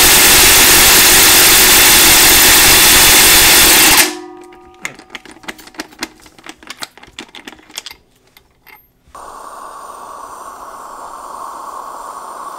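Air-powered impact wrench hammering at full power on the crankshaft pulley bolt for about four seconds, then stopping abruptly; the bolt is tight enough that the impact does not free it. After it come a few seconds of light scattered clicks, then a steady hum from about nine seconds in.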